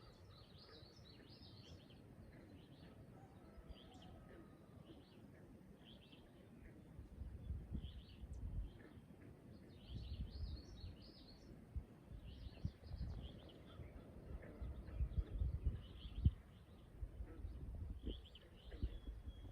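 Songbirds chirping and singing in short, repeated phrases, with irregular low rumbles from about seven seconds in that are louder than the birds.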